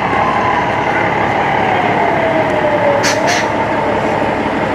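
A large six-wheel tanker truck driving slowly past, its engine and drivetrain running loud and steady, with a whine that slowly falls in pitch and two short sharp sounds about three seconds in.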